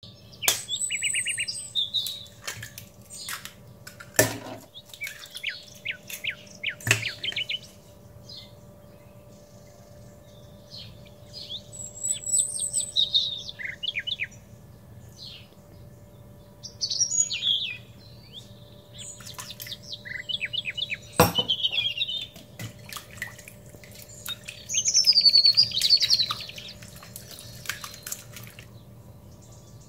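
Songbirds chirping and trilling in repeated phrases, some falling in pitch, with a few sharp knocks in between.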